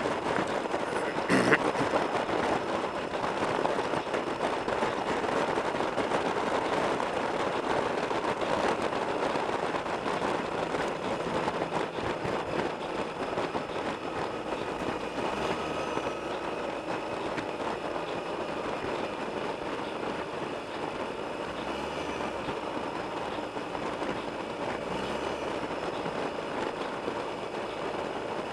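Motorcycle riding at road speed: a steady rush of wind and road noise, with a single sharp tap about a second and a half in.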